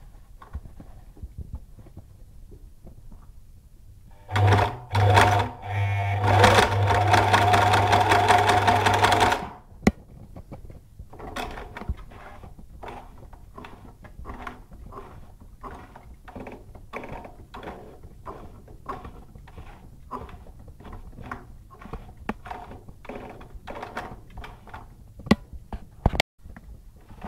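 Janome 618 home sewing machine, its rotating hook fitted with a chain-stitch attachment instead of a bobbin case, running fast for about five seconds with a steady motor hum, starting in a couple of short spurts. After that the mechanism goes on at a much slower pace, a quieter clicking of a couple of strokes a second.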